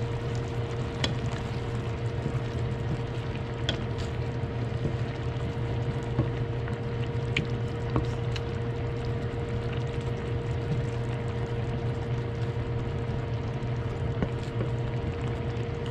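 Oyster and tomato sauce simmering and bubbling in a stainless steel pan while a wooden spatula slowly stirs it, giving a few light taps against the pan. A steady low hum runs underneath.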